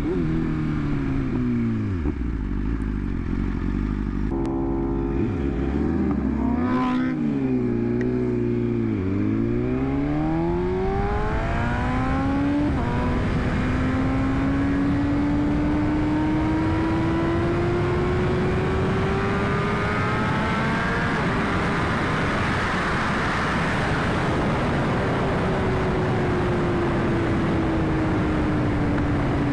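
2021 BMW S1000RR's inline-four engine on the road. It winds down off the throttle at first, then sits low with several quick rev blips up and down. From there it pulls slowly and steadily up through the revs for several seconds, then eases back to a steady cruise, with wind rush building as the speed rises.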